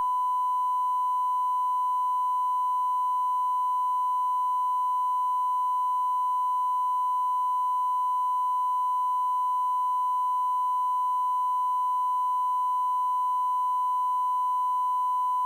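A steady, unbroken pure tone at about 1 kHz, like an electronic reference test tone, held at a constant level.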